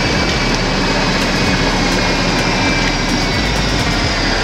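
Steady loud rushing noise of a golf cart on the move in the rain, with wind on the microphone.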